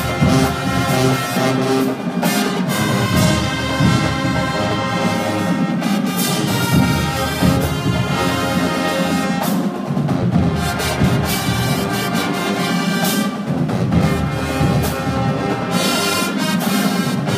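High school marching band playing a slow ballad: sustained brass chords with sousaphones underneath and occasional drum strokes.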